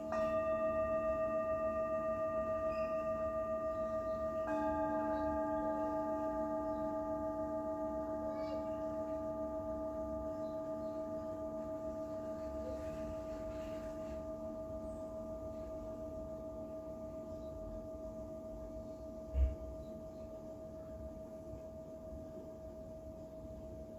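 Singing bowl struck twice, about four and a half seconds apart, each strike ringing on in a long, slowly fading tone with a gentle wavering pulse. A brief low thump about twenty seconds in.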